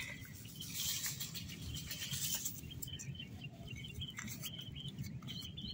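Sugar poured from a bowl into water in an iron kadai: a soft hissing patter in the first second or so. Small birds chirp in the background after that.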